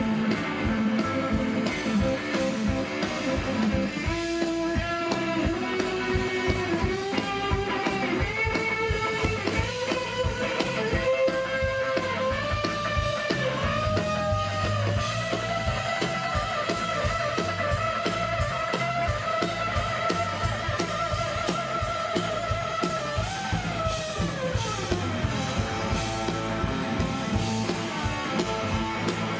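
Live blues band playing an instrumental break led by electric guitar. The lead climbs step by step through a run of notes, holds one long note, then slides down in pitch about two-thirds of the way through, over a steady drum beat.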